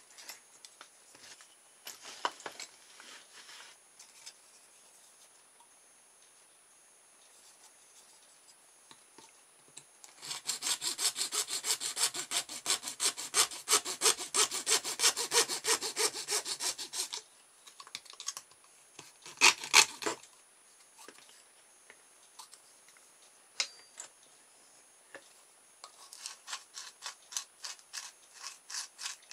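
A small hacksaw cutting through the plastic end of an electric toothbrush handle: a steady run of back-and-forth strokes lasting about seven seconds in the middle, a short burst a little later, and more strokes near the end, with quiet handling in between.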